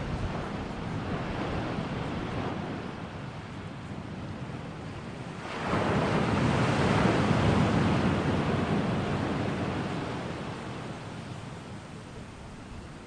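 Rushing background noise that swells sharply about five and a half seconds in, then slowly fades away.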